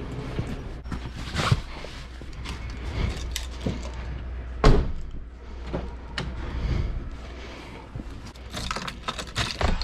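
Clunks and rustling of someone moving about a Nissan's back seat and climbing into the driver's seat, with a car door shut hard about four and a half seconds in. A steady low hum runs underneath.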